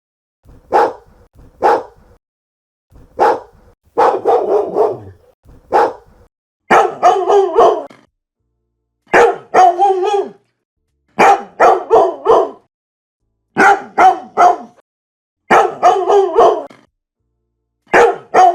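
A dog barking: a few single barks at first, then bursts of three or four quick barks about every two seconds, with dead silence between the bursts.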